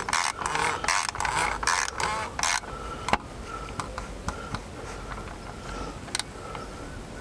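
Oil filter wrench turning the oil filter housing cap tight: a quick run of rasping strokes, two to three a second, for about two and a half seconds, then a sharp click about three seconds in and a few lighter clicks.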